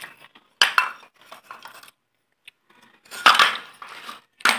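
Terracotta clay cups and pots clinking against each other as they are handled. One sharp clink comes about half a second in, a cluster of clinks just past three seconds, and another near the end.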